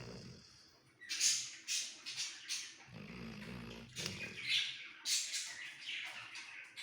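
Labrador snoring while asleep: a low, rough snore about three seconds in, with runs of short, breathy, wheezy puffs before and after it.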